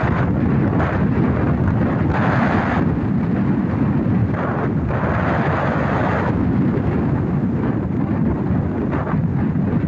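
Strong wind buffeting the microphone in a constant low rumble, with irregular surges of rushing hiss from gusts and breaking waves on a rough sea.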